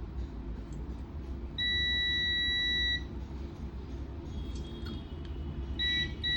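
Digital multimeter continuity beeper, used to check the power supply's secondary side for a short. One long high beep of about a second and a half, then a quick run of short beeps near the end.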